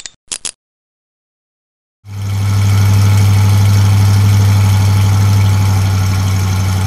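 Two short clicks at the very start, then after a pause a monster truck engine sound effect comes in about two seconds in and runs steadily with a strong low drone.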